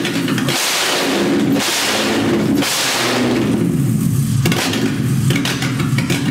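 Volkswagen 3.2 VR6 six-cylinder engine running on a floor stand outside the car. It has just started for the first time on its original engine computer and is holding an idle, its sound swelling and easing several times.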